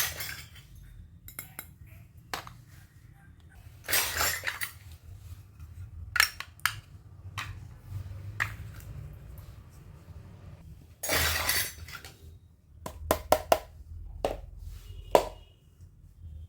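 Miniature toy kitchen pieces being handled: a series of small, sharp clinks and taps as the tiny dishes and utensils knock together and are set down, several in quick succession near the end, with a few short rustles in between.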